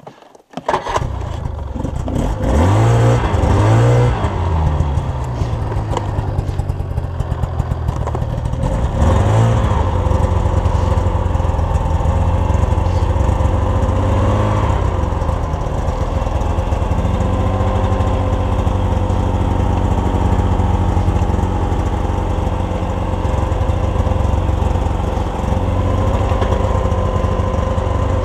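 Snowmobile engine coming in about a second in, revving up a few times, then running steadily as the sled rides along a trail in snow.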